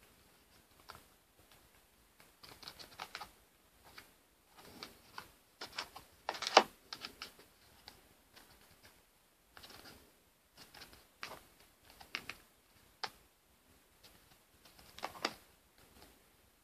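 Small cardboard boxes handled and turned over in the hands: faint, irregular taps, scrapes and rustles of fingers on cardboard, the loudest about six and a half seconds in.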